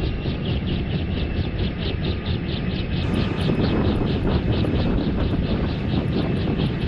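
A small helicopter running on the deck, its main rotor turning with a steady, even blade chop about five beats a second over heavy low noise.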